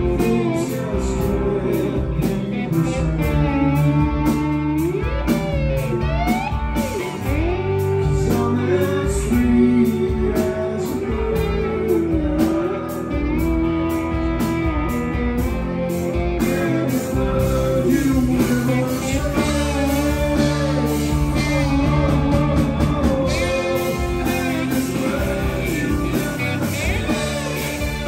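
Live rock band playing: electric guitars, bass and drums, with a gliding slide-guitar melody and a man singing lead into the microphone.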